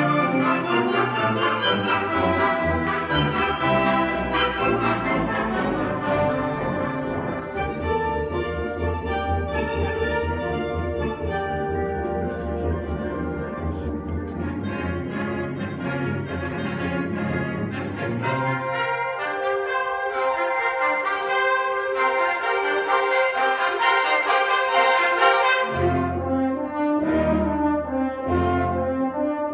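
Concert wind band playing a full passage, brass and horns prominent. About two-thirds of the way through the low instruments drop out, leaving the upper winds and horns, and near the end the low brass come back in with separate, punctuated notes.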